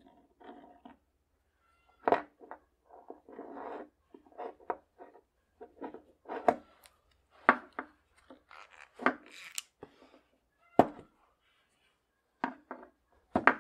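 Steel parts of a coaster brake hub clicking, clinking and scraping as the hub is taken apart by hand: irregular small metal sounds with several sharper knocks, the loudest about eleven seconds in.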